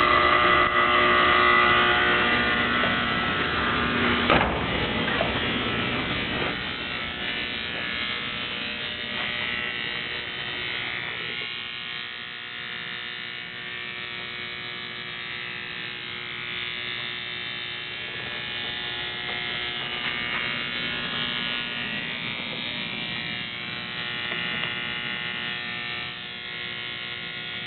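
A steady buzz in a vehicle, made of several held tones over a hiss. It is loudest in the first few seconds, with a single knock about four seconds in, then eases off after about six seconds and carries on at a lower level.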